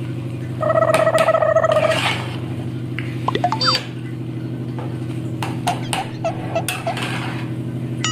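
Metal spatula scraping and clicking against a steel pan while stirring thick upma, a few sharp clicks between about five and seven seconds in. A steady low hum runs underneath, and a louder steady tone sounds for about a second and a half near the start.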